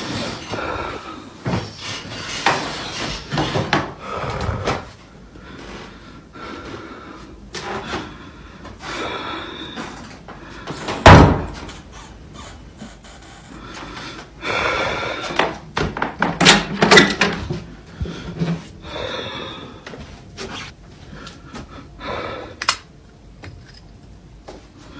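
A handheld phone recording moving through a quiet room, with rustling and handling noises. There is one heavy thump about eleven seconds in, the loudest sound. In the second half a wooden door is handled and opened, with knocks and clicks.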